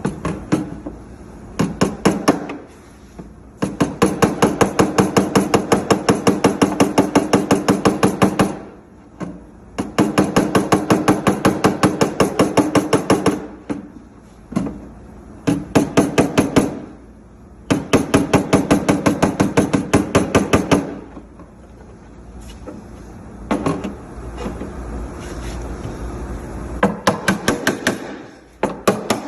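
Bodywork hammer tapping on the sheet-metal quarter panel in fast runs of several strikes a second, each strike ringing the steel, with short pauses between runs.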